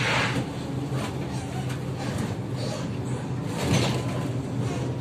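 Kyiv-12.03 trolleybus under way, heard inside the passenger cabin: a steady electric hum over running noise, with two short, louder noisy rushes, one at the start and one near four seconds in.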